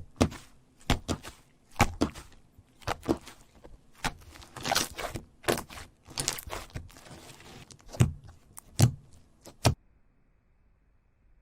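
Slime being squeezed and poked by hand: irregular sharp pops and sticky crackles, some in quick runs, stopping shortly before the end.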